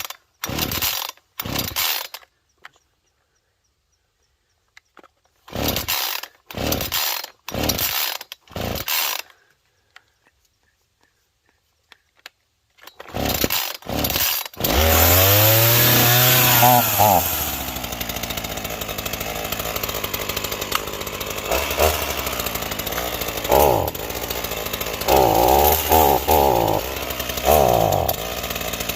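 Ryobi RY3716 37 cc two-stroke chainsaw being pull-started cold on choke: three groups of quick starter-cord pulls. It catches about fifteen seconds in, revs up and back down, then runs on at idle and is revved in several short blips near the end.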